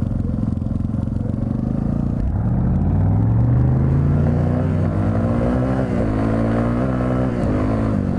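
Yamaha TT-R250 dirt bike's single-cylinder four-stroke engine running steadily, then revving up about two seconds in as it accelerates hard away from the start. Its pitch climbs and drops several times as it shifts up through the gears.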